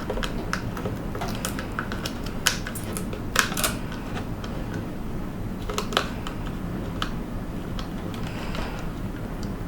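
Irregular light clicks and taps from handling a 2.5-inch SSD and peeling the backing off double-sided tape, over a steady low hum.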